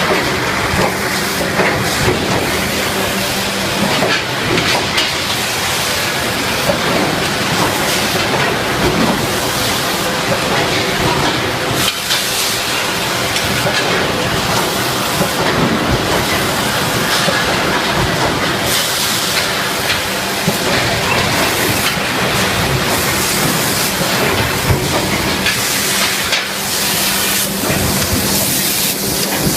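Drop forging shop machinery running steadily with frequent metallic clanks and knocks throughout.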